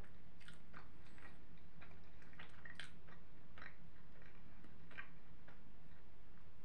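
A person chewing a mouthful of shawarma close to the microphone: irregular wet smacks and clicks of the mouth and food, a few each second, over a steady low hum.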